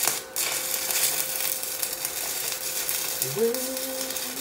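Stick-welding arc crackling and sizzling steadily as a 7018 rod burns on a DEKOPRO 110-volt stick welder set to about 111 amps; the arc goes out for a moment just after the start and is struck again. Near the end a man's voice holds a sung note over it.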